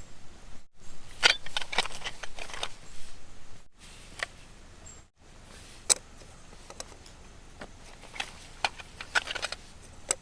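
Camping gear being handled during camp setup: quick runs of light clicks and rattles, about a second in and again near the end.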